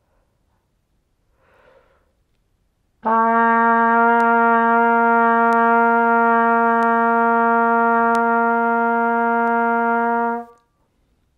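Trumpet holding one long, steady note for about seven seconds: the written low C below the staff, the open-valve first note a beginner learns. It starts cleanly about three seconds in.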